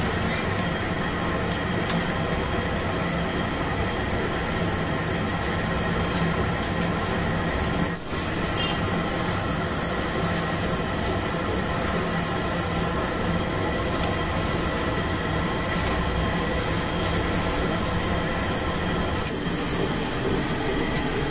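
Mysore bondas deep-frying in a kadai of hot oil: a steady sizzle mixed with the constant roar of the gas stove burner beneath it, with a brief break about eight seconds in.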